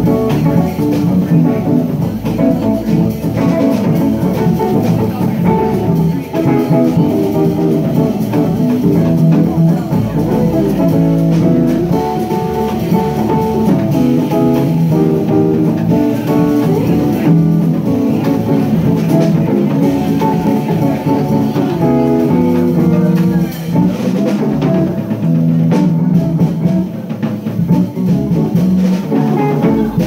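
Live jazz trio playing: a hollow-body archtop electric guitar picking single-note lines and chords over bass and drums.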